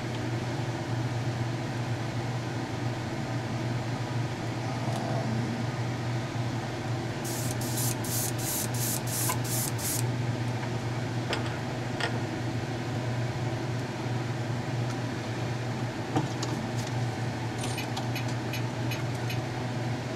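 Spray booth exhaust fan running with a steady hum, while an Iwata airbrush set to about 20 psi sprays paint in short hissing bursts, about three a second, starting about seven seconds in. A few faint clicks follow, and another run of shorter bursts comes near the end.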